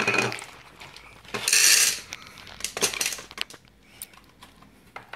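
Jelly beans tipped from a cardboard box into a bowl: a knock at the start, then a rattling pour lasting about half a second, about a second and a half in, followed by scattered clicks and taps as the box and beans are handled.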